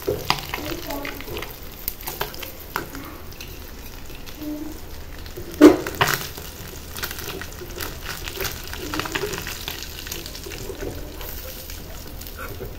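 Whole pomfret sizzling in hot frying oil while a slotted metal spatula scrapes and clicks against the pan, lifting the fish out. A single sharp metal knock about five and a half seconds in is the loudest sound.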